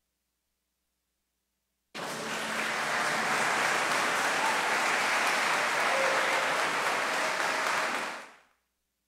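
Silence for about two seconds, then a church congregation applauding steadily, fading out near the end.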